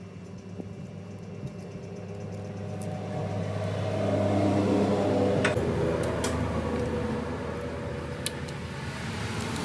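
A motor or engine hum that swells to its loudest about halfway through and then fades, with a few sharp clicks near the end.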